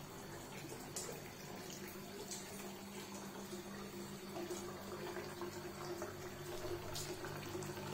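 Water running from a tap into a basin, with a steady low hum underneath and a few light clicks.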